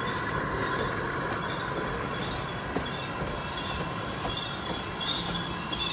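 Wheels of a G scale model freight train's hopper cars rolling steadily past on the track, with short high-pitched wheel squeals coming and going and a few faint clicks.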